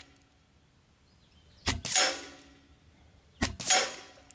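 Two shots from a Benjamin Armada regulated semi-automatic .22 PCP air rifle, about 1.7 seconds apart, fired in quick succession. Each is heard as a sharp crack followed about a quarter second later by a louder crack that trails off.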